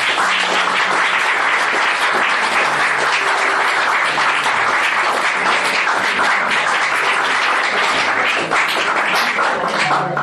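Audience applauding, a dense continuous clapping, with music playing underneath.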